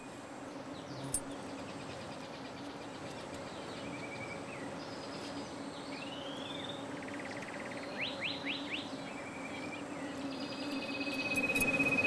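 Natural bush sounds: birds chirping and whistling in short calls, with a quick run of rising chirps near the middle, over a high pulsing trill like an insect's and a low steady hum.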